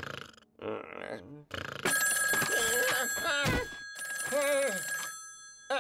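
Desk telephone ringing: one continuous electric bell ring lasting about three seconds, starting about two seconds in and stopping shortly before the end.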